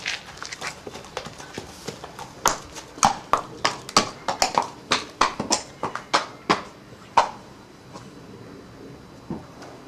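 A horse's hooves clopping on a concrete yard as it walks, a run of sharp irregular knocks that stops about seven seconds in.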